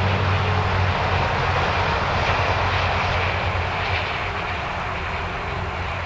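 A steady engine drone with a low hum, easing off slightly after about four seconds.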